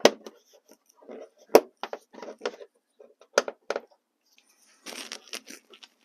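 Plastic front fender liner of a Honda Odyssey being pushed and tucked behind the bumper cover by hand: irregular clicks, knocks and light scrapes of plastic, the sharpest knock about a second and a half in.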